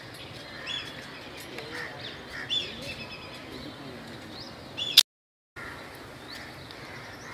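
Small birds chirping in short, scattered calls. About five seconds in, a sharp click and the sound cuts out completely for half a second before the chirping resumes.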